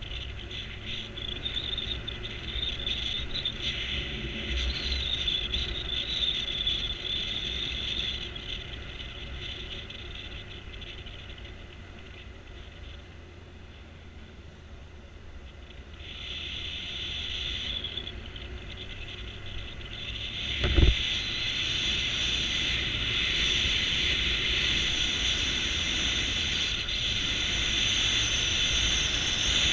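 Motorcycle running along a mountain road, heard from an on-board camera: a steady engine rumble mixed with wind and road hiss that grows louder in the second half. A single sharp thump about two-thirds of the way through is the loudest sound.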